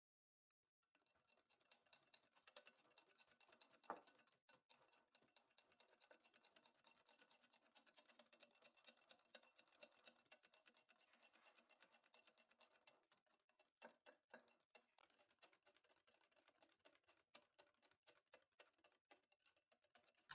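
Near silence, with faint scattered ticks and scratches as cream is squeezed from a packet into a glass mixing bowl; one louder tick about four seconds in.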